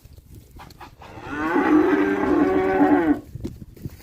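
A young calf mooing: one long call lasting about two seconds, starting a little over a second in.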